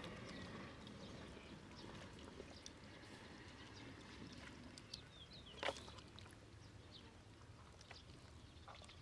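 Near silence: faint outdoor background with a few scattered faint ticks or chirps, and one short sharp sound a little after halfway.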